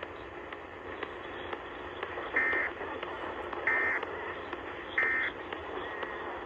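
Emergency Alert System end-of-message (EOM) data bursts: three short, identical warbling digital tones about 1.3 s apart, closing the Required Monthly Test. Heard through AM radio reception, over steady hiss and static.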